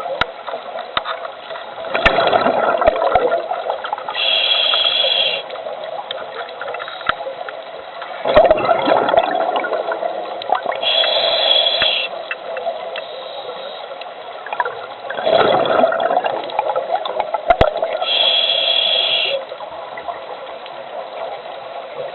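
Scuba diver breathing through a regulator underwater, three breaths about seven seconds apart: each a burst of exhaled bubbles gurgling, then a hissing inhale through the regulator. Scattered sharp clicks sound over a steady underwater background.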